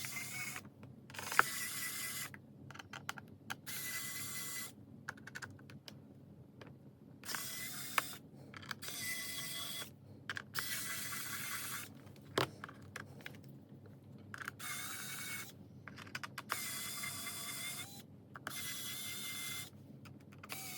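Small screwdriver backing the long back-cover screws out of an MSI Claw A8 handheld, running in repeated short whirring spells of about a second each with brief pauses between them.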